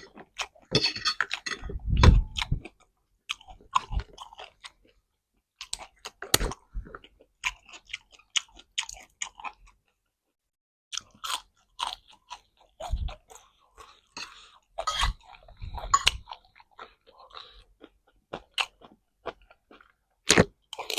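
Close-up chewing and crunching of crisp food by a person eating, in irregular bites with a brief pause about ten seconds in.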